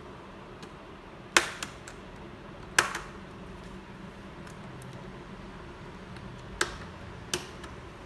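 Four sharp plastic clicks with a few lighter ticks after them, from hands and a tool working on a laptop's plastic casing.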